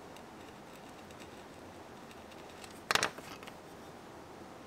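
Cut pieces of leather handled and set down on a wooden workbench: one short, sharp rustle and slap about three seconds in, followed by a few lighter rustles, over faint steady room noise.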